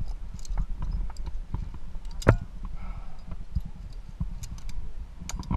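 Irregular metallic clicks and knocks of via ferrata climbing gear: lanyard carabiners and hardware striking and scraping along the steel safety cable and rock. The sharpest knock comes a little over two seconds in, over a low rumble.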